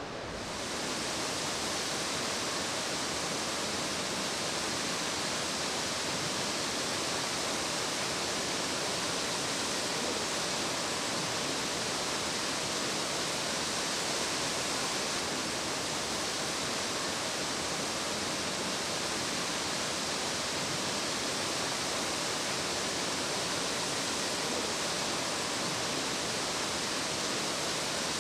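Nachi Falls, a tall single-drop waterfall, giving a steady, even rush of falling water that sets in about a second in and holds without change.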